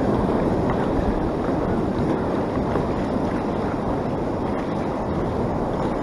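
Steady wash of ocean surf with wind buffeting the microphone.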